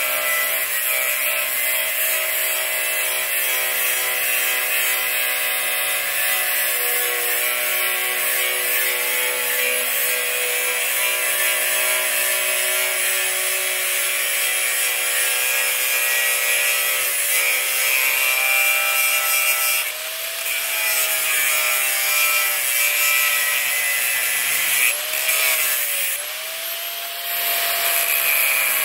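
Corded right angle grinder cutting into the steel of an old safe: a continuous grinding with the motor's steady whine. The motor pitch shifts about two-thirds of the way through and again near the end, with a brief drop in level as the load on the wheel changes.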